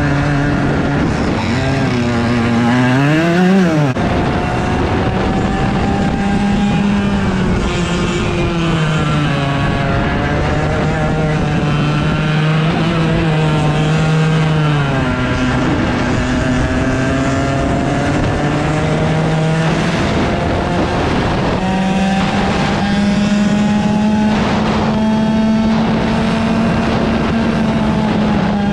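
100cc two-stroke racing kart engine heard on board, its pitch climbing slowly as it pulls and dropping off again when the throttle is lifted, several times over. About three seconds in it revs up quickly and falls away.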